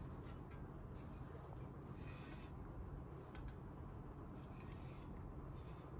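Faint handling noises from the ITX PC case being handled: a few soft rubbing or scraping sounds and a small click over a low steady hum.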